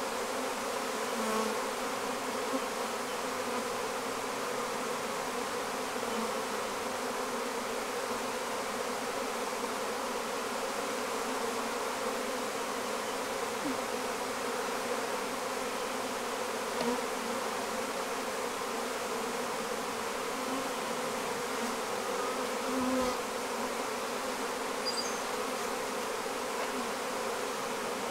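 Honeybees from a defensive colony buzzing in a steady hum over an open Flow hive.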